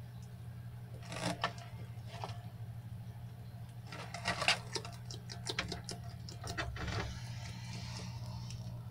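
Bearded dragon scrabbling and feeding in a plastic tub of loose substrate and superworms: bursts of sharp clicks and scratches, busiest from about four to seven seconds in, over a steady low hum.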